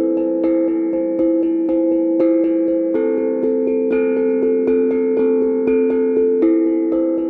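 Improvised instrumental music: an even run of repeated plucked or struck notes, about four a second, over held ringing tones.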